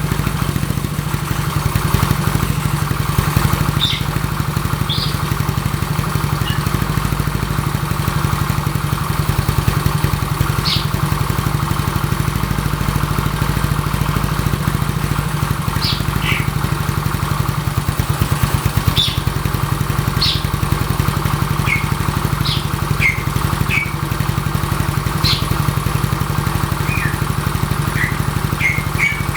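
A Yamaha Mio scooter's bored-up 150 cc single-cylinder engine idling steadily.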